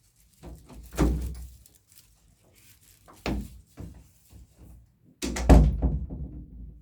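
Several dull thuds and knocks: one about a second in, a sharp one a little after three seconds, and a longer, louder run of bumping near the end.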